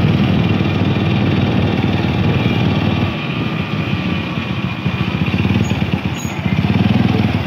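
Motorcycle engine running while riding slowly, heard from the rider's seat, its pulses steady. The engine eases off slightly in the middle and picks up again near the end.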